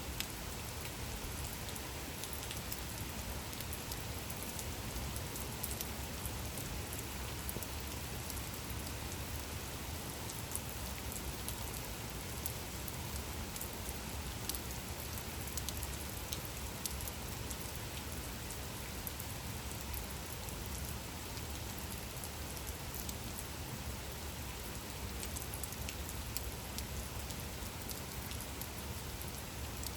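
Steady gentle rain falling, an even hiss with scattered individual drops ticking on a surface.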